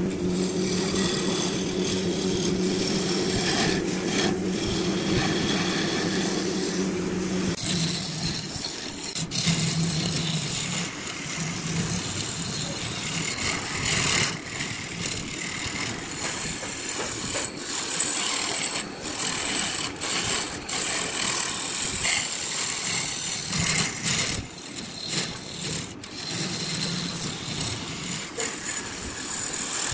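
Wood lathe running while a hand-held flat steel tool scrapes the spinning wooden vase, a rasping scrape over the lathe's hum. About seven seconds in the low hum drops away and the scraping becomes higher and more uneven, with a few short clicks.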